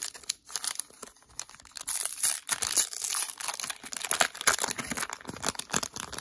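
Foil wrapper of a Pokémon trading card booster pack crinkling and tearing as it is ripped open by hand, a dense run of crackles.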